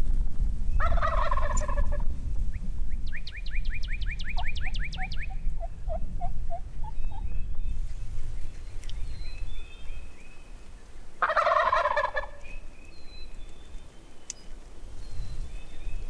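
Rio Grande wild turkey gobbler gobbling from the roost twice, about a second in and again about eleven seconds in, each gobble lasting about a second. Between the gobbles a songbird sings a fast high trill of about six notes a second, with scattered chirps, over a low rumble.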